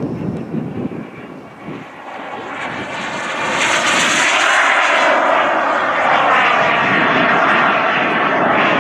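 Radio-controlled model airplane's engine flying past close overhead, growing louder from about two seconds in and holding loud and steady until the end.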